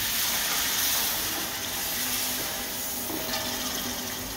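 Curry paste of fried onion, garlic and spices in hot oil hissing and sizzling steadily in a karahi, just after a little water has been poured in. The hiss eases slowly toward the end.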